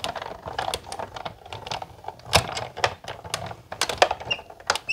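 Sizzix Big Shot die-cutting machine being hand-cranked, its rollers drawing a circle die and cutting plates through. It gives a rapid, irregular run of clicks and knocks, with louder knocks about two and a half seconds in and near the end.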